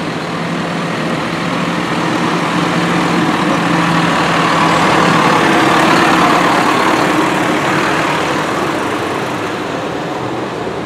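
John Deere farm tractor's diesel engine driving past, growing louder to a peak about halfway through and then fading, with the hiss of its tyres on the wet road.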